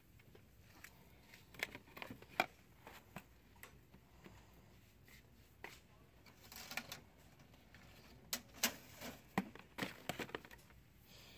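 Products being handled on a store shelf: scattered light clicks and knocks as cardboard boxes and plastic bottles are picked up and moved, with a brief rustle about six and a half seconds in.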